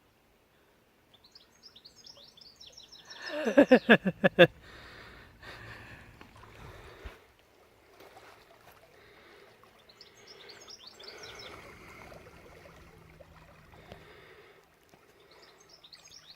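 Small birds chirping in quick falling notes, again and again. A few seconds in comes one loud, pulsing call that drops steeply in pitch over about a second.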